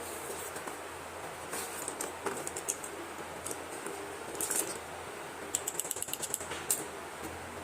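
Slate pencils and their packaging being handled: scattered light clicks and rattles, with a quick run of clicks about six seconds in.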